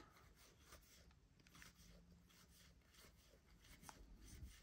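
Faint, irregular soft flicks and rustles of baseball cards being slid one by one off a stack, in near silence.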